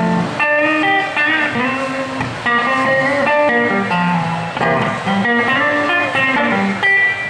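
Blues guitar solo on a hollow-body archtop electric guitar, played through an amplifier as a quick run of single notes.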